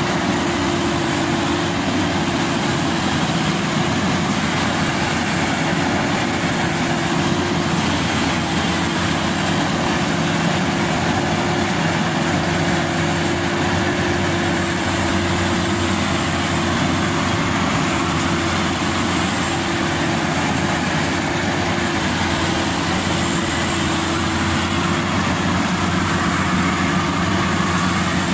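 Maxxi Bimo Evo Xtreme rice combine harvester running steadily as it cuts and threshes rice, its engine and threshing machinery making a constant, even hum.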